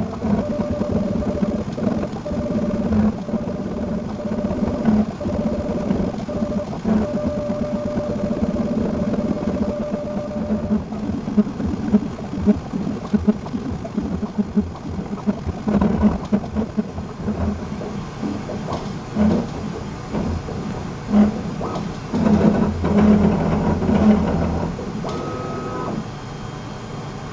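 3D printer mechanism running, a mechanical whirring with many irregular clunks. Near the end it settles into a quieter, steady hum.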